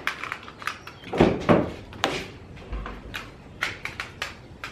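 Clicks, knocks and a few dull thumps of a Chevrolet Equinox's door being opened and handled.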